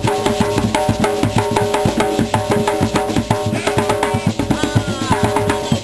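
A group of African hand drums struck by hand in a fast, dense rhythm, with some held tones sounding above the drumming.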